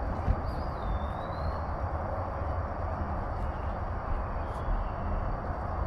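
Steady outdoor background noise with a low rumble, and a faint wavering bird call about half a second in.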